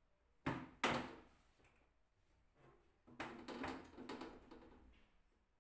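Wooden cabinet doors with wire-mesh panels being handled and shut by hand, knocking against the frame: two sharp knocks within the first second, then a run of knocks and rattles from about three to five seconds in.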